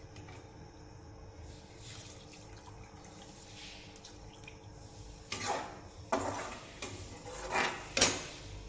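Water poured from a steel tumbler into a hot aluminium kadai of spiced potato curry, with a metal spatula stirring in the pan. The first few seconds are a low, steady background; the last three seconds bring several louder splashes and scrapes against the pan.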